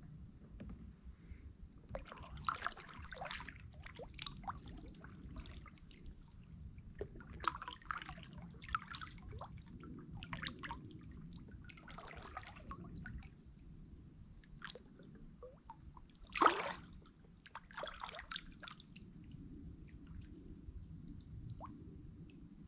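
Kayak paddle dipping quietly into still water in slow strokes, with water dripping and trickling off the blades in short clusters every few seconds; one louder plop about three quarters of the way through.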